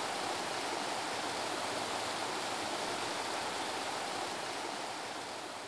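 Steady rushing noise with no distinct events, easing off slightly near the end.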